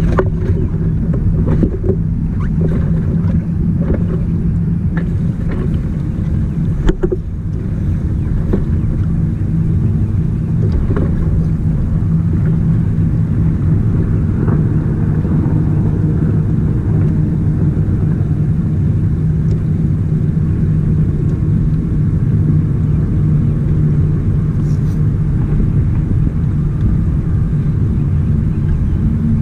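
A boat motor running steadily with a low rumble. A few sharp knocks come in the first seven seconds, the loudest about seven seconds in.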